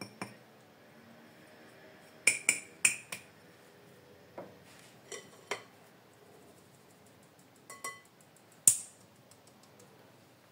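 Metal mesh sieve clinking and knocking against a glass mixing bowl as flour is sifted through it. There are four quick clinks about two seconds in, a few scattered ones after, and the sharpest knock near the end.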